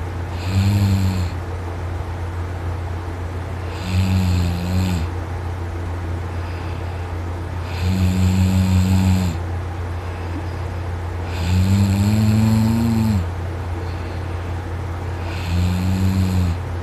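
A man snoring loudly in his sleep while lying on his side. There are five snores, each about a second long and roughly four seconds apart, over a steady low hum.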